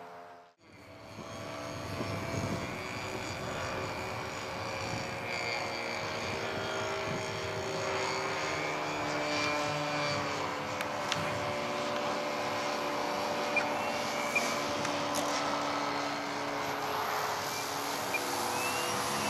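Electric motor and propeller of a radio-controlled Top Flite Cessna 182 model airplane, giving a steady drone whose pitch wavers slowly as the plane flies. The sound drops out briefly about half a second in and rises in pitch near the end.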